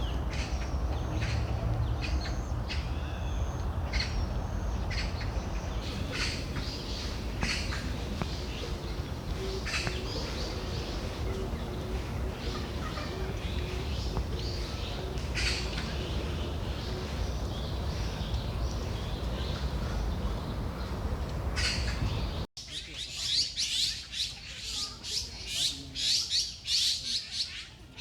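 Wild birds chirping in short scattered calls over a steady low outdoor rumble. Near the end the sound cuts abruptly to dense, rapid birdsong close by over a much quieter background.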